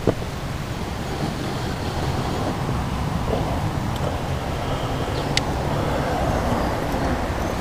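Steady low rumble of wind buffeting the microphone, with a few light clicks as a landing net and unhooking mat are handled.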